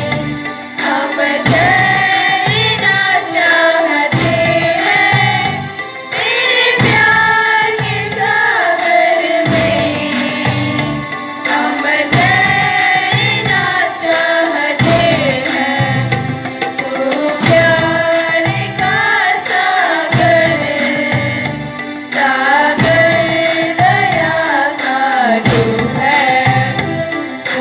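Song with singing over instrumental backing and a steady percussion beat.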